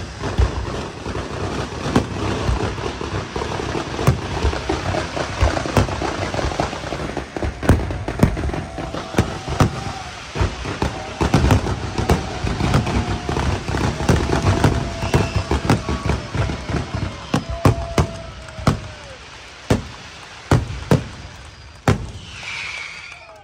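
Fireworks display: dense crackling and many sharp bangs of bursting shells, thinning out to a few separate bangs near the end.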